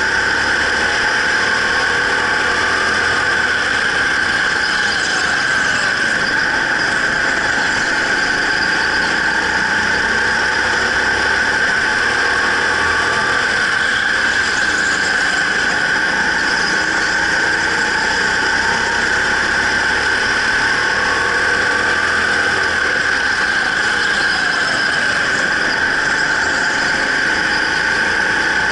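Racing go-kart lapping an indoor track: its motor note rises and falls every few seconds through the corners, under a steady high-pitched squeal.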